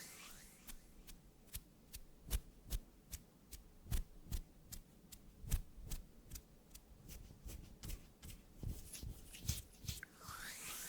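An irregular series of crisp clicks, about three to four a second and uneven in strength, with a brief swishing sweep near the end.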